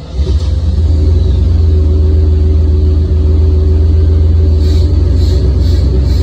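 Chevy 350 small-block V8 with Holley Sniper EFI starting up hot, catching in the first moment and settling into a steady idle. The idle speed hunts between roughly 850 and 990 rpm, the warm-engine idle surge the owner puts down to the idle air control hunting. A faint high chirp repeats about twice a second near the end.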